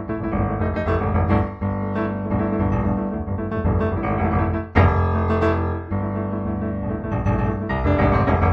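Solo piano music, with notes and chords sounding one after another and a loud chord struck about five seconds in.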